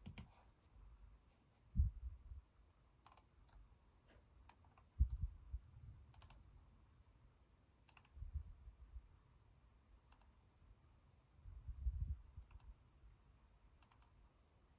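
Faint, irregular clicking of computer controls while navigating a map, about a dozen clicks, with four dull low thumps spread through.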